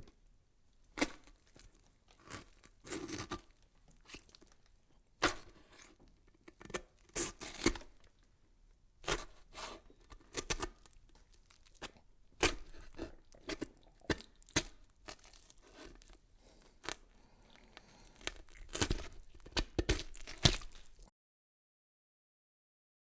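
Irregular crunching and crackling: a long run of sharp, uneven cracks with short pauses between them, cut off suddenly near the end.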